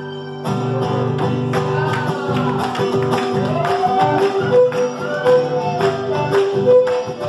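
Live duo of strummed acoustic guitar and violin, the guitar keeping a steady rhythm while the violin plays a melody with sliding notes. The music dips briefly at the start and then comes back in.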